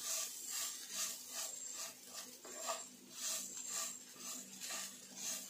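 Wooden spatula stirring and scraping dry-fried shredded chicken and coconut around a non-stick frying pan, in a steady rhythm of short scrapes, about two to three a second. A steady low hum runs underneath.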